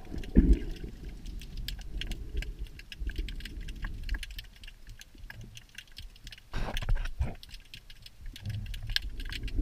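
Underwater ambience picked up by a camera underwater: a constant crackle of tiny clicks over a low rumble, with a loud thump about half a second in and a louder rush of noise about seven seconds in.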